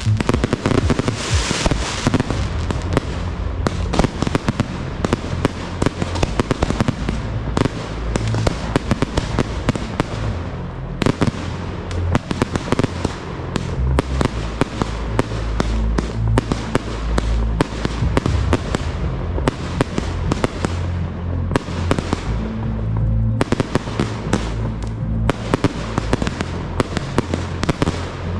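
Fireworks display: aerial shells bursting in rapid succession, many sharp bangs and crackles a second, with no pause.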